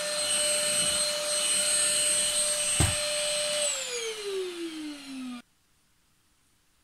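Red cordless stick vacuum cleaner running with a steady high motor whine, with a single knock about three seconds in. Its motor then winds down, the whine falling in pitch, until the sound cuts off abruptly.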